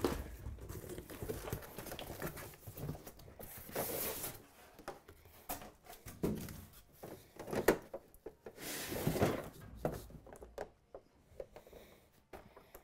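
A large cardboard TV box being unpacked: packing tape tearing, and cardboard flaps and packing rustling and scraping, with scattered knocks and a few louder scrapes.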